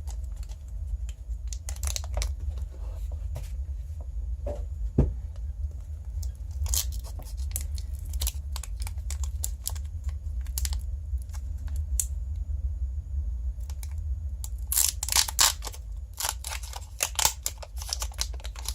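Foil Pokémon booster pack wrapper crinkling and tearing as it is opened by hand. The crackles come scattered, busiest near the end, over a steady low hum.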